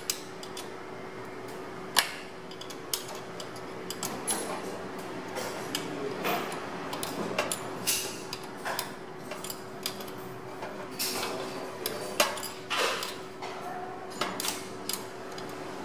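Irregular metal clicks and small knocks of hand tools and screws as the upper mould set of a sealing machine is screwed down tight, over a steady hum.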